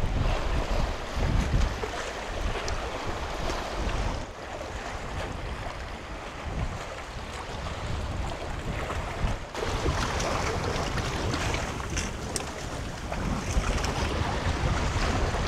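Gusty wind buffeting the microphone over waves washing against a boulder shore, with a few light clicks. The wash grows louder about ten seconds in.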